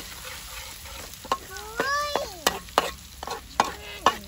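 Clams being stir-fried in a hot pan: a steady sizzle, then from about a second in a run of sharp knocks and scrapes as they are stirred.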